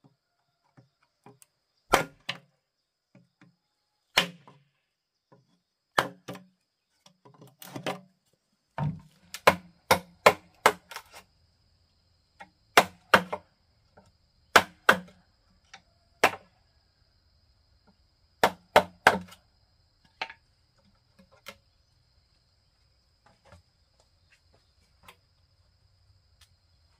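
A tool striking bamboo in irregular sharp blows, often in quick twos or threes, with pauses of a second or more between groups.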